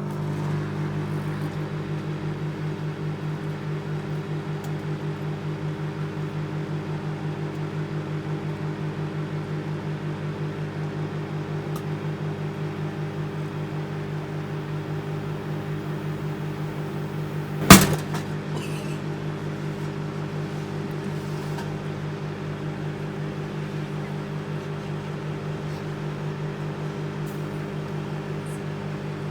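Microwave oven running with a steady hum while heating a whole passion fruit. About two-thirds of the way through there is one sharp, loud bang as the passion fruit bursts inside.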